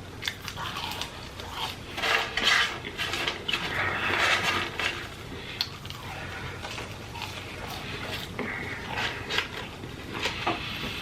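Close-miked eating sounds: chewing, smacking and breathing through the food, with many small clicks and light clatter from the food, packaging or tray.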